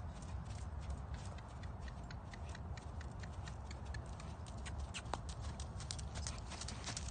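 Horse's hoofbeats on soft arena dirt, a steady run of light regular thuds that grow louder near the end as the horse comes closer, over a steady low rumble.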